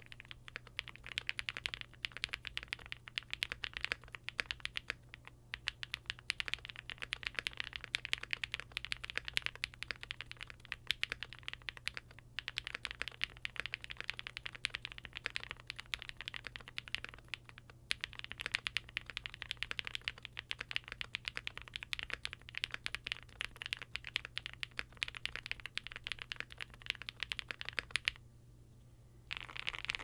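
Continuous typing on a gasket-mounted Jelly Epoch mechanical keyboard with a polycarbonate plate, lubed Durock POM switches and GMK keycaps: a poppy, muted clacking of keystrokes. It pauses briefly a few times and stops near the end.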